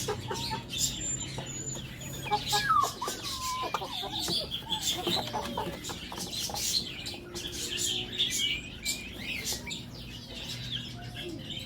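Chickens clucking, with many short calls overlapping and higher chirps among them.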